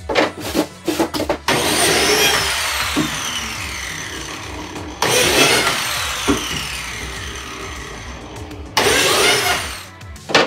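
Electric biscuit joiner (plate joiner) cutting slots in the edges of birch plywood. The motor starts abruptly three times, about a second and a half in, near the middle, and near the end. After each cut it winds down with a falling whine. Before the first cut there are a few sharp knocks of plywood pieces being handled.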